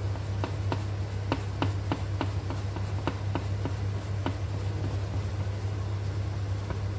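Wire whisk clicking against the side of a glass mixing bowl while stirring a thick banana batter, about three light clicks a second, stopping about four seconds in. A steady low hum underneath.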